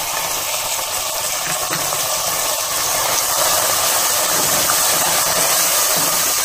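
Chopped tomatoes sizzling in hot mustard oil in a pressure cooker pan, stirred through with a spatula; a steady sizzle that grows a little louder about three seconds in.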